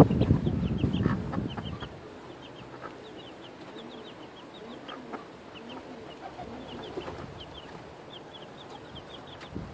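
Chicks peeping in short, high cheeps throughout, with the mother hen giving soft, low clucks among them. A louder rustling noise fades out over the first two seconds.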